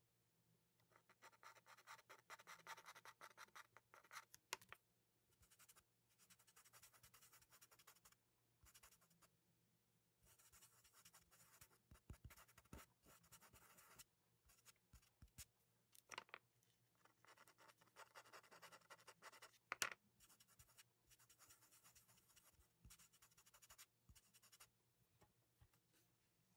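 Faint scratching of a soft ultramarine pastel stick and fingertips rubbing colour into paper, coming in bursts of a second or a few at a time, with a few sharper ticks among them.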